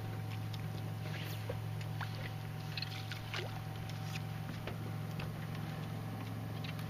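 A small boat's motor humming steadily as the boat moves across the lake, with scattered small splashes and drips of water against the hull.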